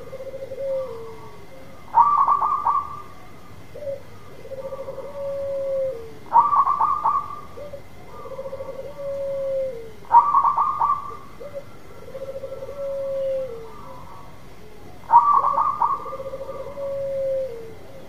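Zebra dove (perkutut) singing its cooing song four times, each phrase opening with a loud quick run of notes and ending in a long, lower coo that falls at its end.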